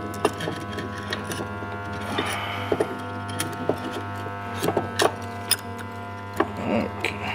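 Irregular light metallic clicks and knocks of steel differential parts being handled, as bearing cups are fitted onto the carrier bearings of an ARB air locker with its ring gear, with a couple of sharper knocks about five seconds in. A steady electrical hum runs underneath.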